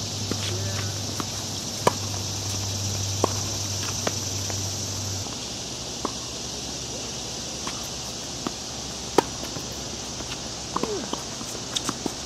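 Tennis rally on a hard court: sharp racket-on-ball pops and ball bounces every second or so, the loudest about two and nine seconds in, with a few short shoe squeaks near the end. A steady high insect buzz runs underneath.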